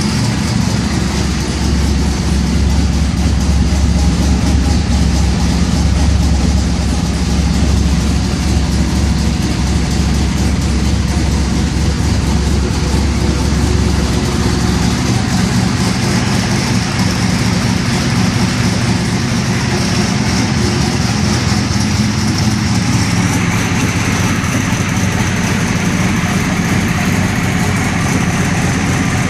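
Twin-turbo 383-cubic-inch V8 of a 1998 Trans Am idling steadily on its first start, its idle note shifting about fourteen seconds in and again a little past twenty seconds.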